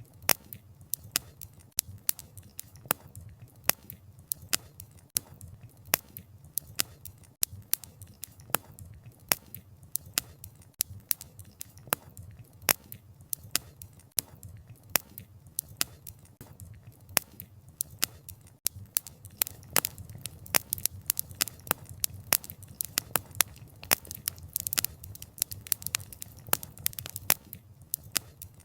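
Wood fire crackling: burning logs give off frequent sharp, irregular snaps and pops over a low steady background of the flames. The snapping grows a little busier in the second half.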